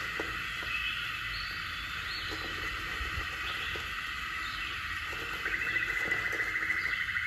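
Shaving brush working wet shaving soap into a lather, with soft, quiet squishes and ticks. A steady high chirring runs behind it, and a fast pulsing trill joins from about five and a half seconds in and is the loudest sound.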